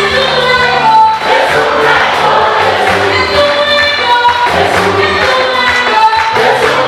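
Choir singing an African gospel song in harmony, with a bass line and a steady beat behind it.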